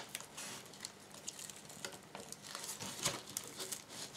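Faint scraping and scattered light clicks from an old wooden picture frame and its cardboard backing being handled as the painting is pushed out. The mat is sticking, so the painting comes loose only slowly.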